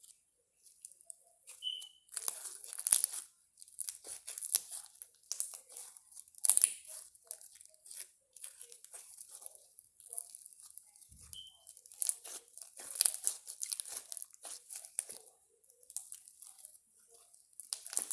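Slime being squeezed and pressed by hand, making crackling, crunching clicks in bursts every second or two.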